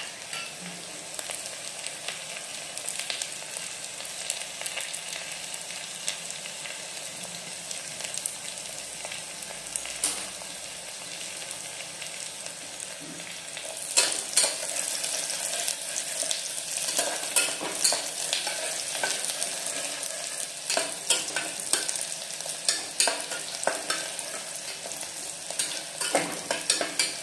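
Chopped onions sizzling as they fry in oil in an open pressure cooker, being browned. A metal spatula scrapes and knocks against the pot as they are stirred, more often from about halfway through.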